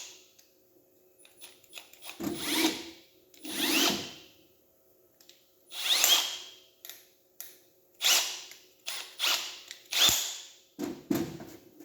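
Milwaukee cordless drill's 1/2-inch metal keyless chuck being spun and tightened on a drill bit, the chuck ratcheting in several short bursts, each with a brief rising whine.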